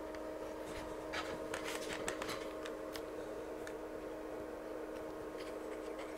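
Camera being handled and repositioned: scattered light clicks and rubbing, mostly in the first half, over a steady low hum.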